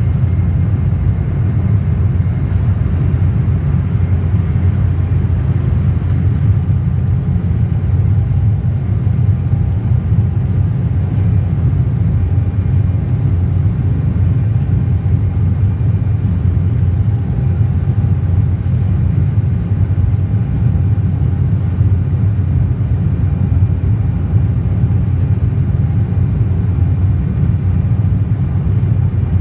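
Steady cabin noise of an Embraer 190 airliner in flight after takeoff: a deep, even rumble from its GE CF34-10E turbofan engines and the airflow, with faint steady whining tones above it.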